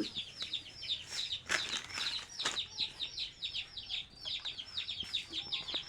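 Small birds peeping continuously: short, high notes that fall in pitch, several a second. Two sharp knocks come between about one and a half and two and a half seconds in.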